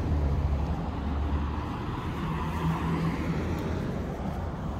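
Road traffic: cars running past on a four-way street, a steady hum of tyres and engines with a low rumble.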